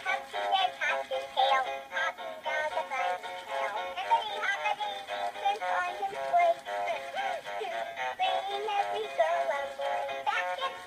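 Animated plush bunny toy playing a song through its small built-in speaker: an electronic, synthesized voice singing over a simple melody. It sounds thin, with no bass.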